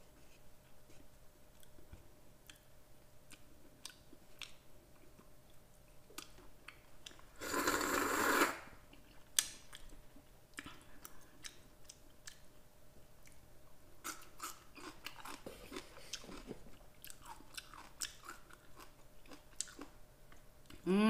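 Close-miked eating of curry cup noodles: quiet chewing with many small mouth and chopstick clicks, and one loud, noisy slurp lasting about a second around eight seconds in.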